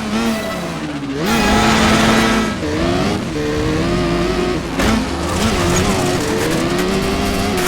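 Car engine revving, its pitch gliding up and down and holding steady in stretches, with a tyre squeal.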